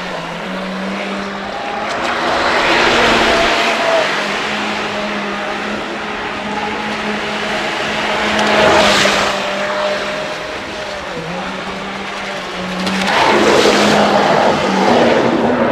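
A 3D-printed RC jet boat's battery-powered motor and water-jet drive whining steadily, the pitch stepping slightly with the throttle. Rushing water swells several times, loudest near the end as the boat sprays past close by.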